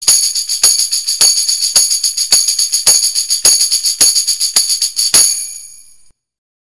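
Tambourine played in a steady beat: about ten strikes roughly every half second, its metal jingles shaking and ringing continuously between them. After the last strike, a little past five seconds in, the jingles ring on briefly and fade.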